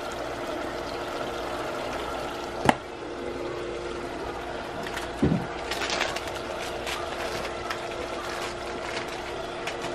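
A pot of pepper stew simmering on the stove, with faint scattered ticks over a steady hum. A single sharp knock comes about three seconds in, and a duller thump about five seconds in.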